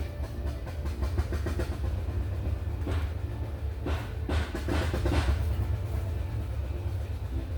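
A machine running steadily with a low drone and a rapid mechanical clatter, with a few louder rushes of noise a few seconds in.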